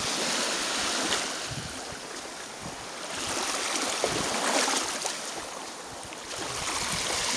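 Small Baltic Sea waves washing in over the sand at the water's edge, the rush of water swelling and fading about every three seconds.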